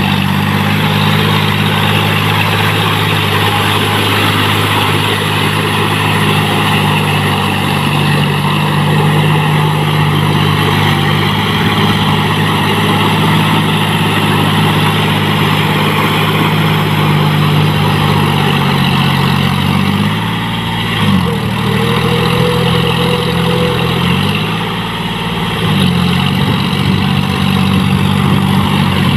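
John Deere 5045D tractor's three-cylinder diesel engine running steadily as the tractor churns through paddy-field mud on cage wheels. About two thirds of the way through, the engine note dips sharply and climbs back twice.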